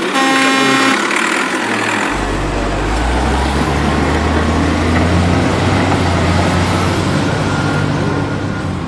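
A short horn-like electronic tone, then a steady low engine rumble of a heavy vehicle that sets in about two seconds in and runs on.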